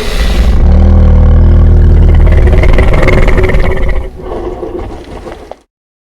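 Bengal tiger roaring: one long, loud, low roar of about four seconds, dropping into a quieter growl that cuts off suddenly.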